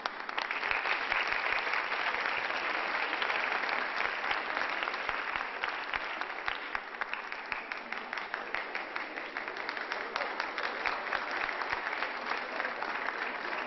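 Audience applauding: a dense, steady patter of many hands clapping that starts suddenly and eases a little in the second half.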